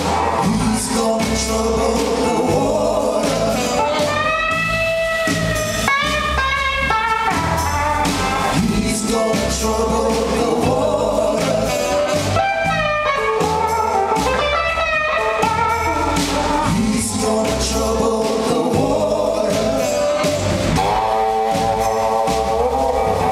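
A live band playing a gospel-blues number: a woman sings lead over electric guitar, bass and drums, with a steady low bass pulse.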